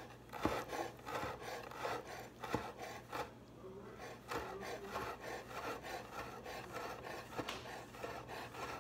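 Kitchen knife finely dicing a jalapeño on a cutting board: irregular chopping and scraping strokes of the blade against the board.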